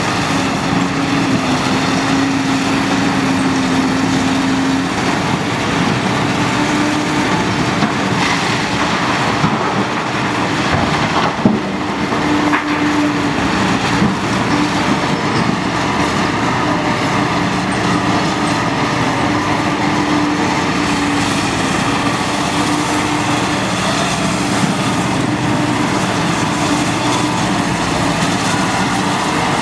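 CAT 992G wheel loader's V8 diesel engine running under load, its pitch wavering as it lifts and tips the bucket. A sharp knock near the middle comes as the bucket load of limestone drops into the haul truck's bed.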